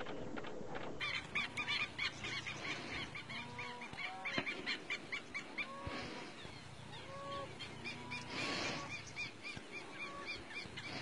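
A flock of birds calling, many short repeated calls overlapping several times a second, starting about a second in.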